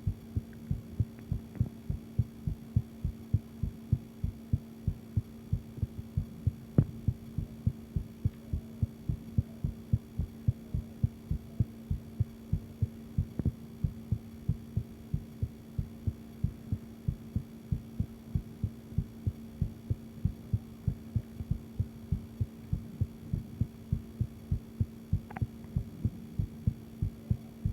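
A woman's heartbeat recorded up close: a long run of steady, evenly spaced low thuds, with a faint steady hum underneath.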